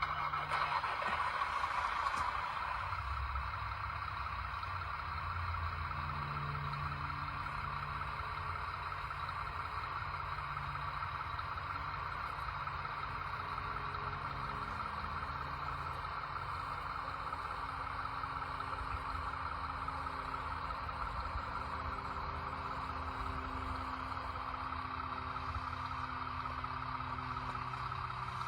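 A motor running steadily, with a low rumble underneath and a brighter whirring hiss above.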